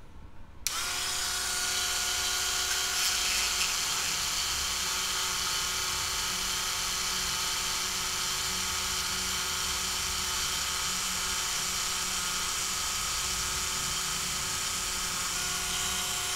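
A handheld rotary tool spinning a short length of 1.75 mm PLA filament, friction (spin) welding it into the seam between two PLA printed parts. It switches on about a second in, runs as a steady high whine for about fifteen seconds, then switches off and winds down at the end.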